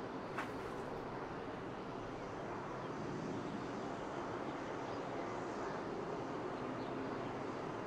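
Steady outdoor background noise from a high balcony, a constant hum and hiss, with one short click just under half a second in.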